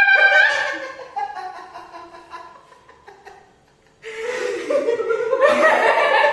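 A person's voice making a long, high vocal sound that slides down and trails off over about three seconds. Laughter breaks out about four seconds in.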